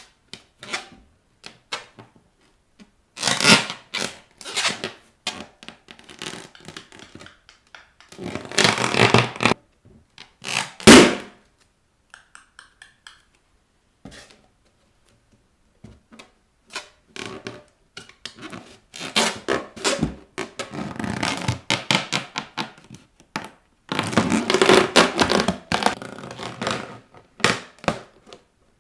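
Rubber balloons being pressed and rubbed under bare feet in several rustling, scraping spells, with one sharp, loud balloon pop about eleven seconds in.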